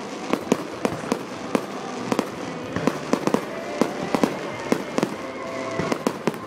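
Aerial fireworks shells bursting: an irregular run of sharp bangs and crackles, about three a second.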